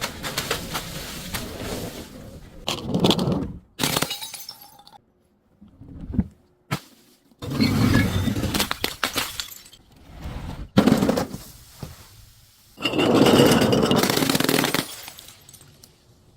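Glass bottles being crushed and breaking in several separate bouts of crunching and cracking, with clinking of the broken pieces; the longest and loudest bouts come near the middle and near the end.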